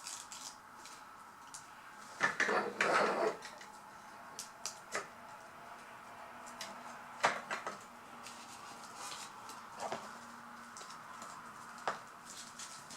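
Small hard plastic toy pieces being handled, giving scattered sharp clicks and taps, with a short burst of rustling and clatter about two to three seconds in.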